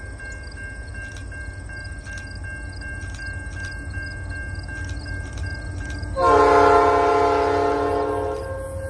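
CN freight diesel locomotive approaching with a low engine rumble, then its air horn sounds one loud chord blast about six seconds in, lasting a little over two seconds.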